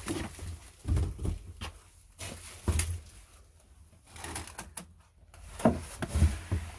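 A pet animal making a string of short, strange sounds at uneven intervals, some with a falling pitch.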